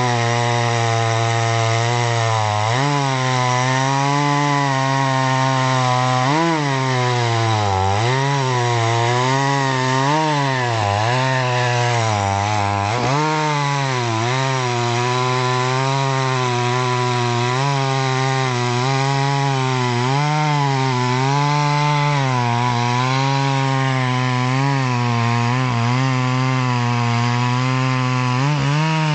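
Solo by AL-KO 652 two-stroke petrol chainsaw at full throttle cutting through a thick log. The engine note sags and recovers again and again as the chain loads up in the wood.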